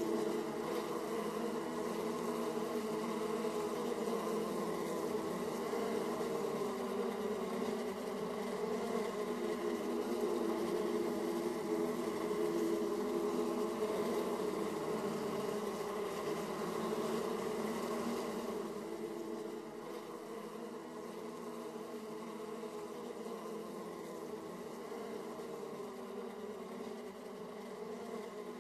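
Honey bees buzzing at a hive entrance: the dense, steady hum of many bees flying in and out. It eases off a little about two-thirds of the way through.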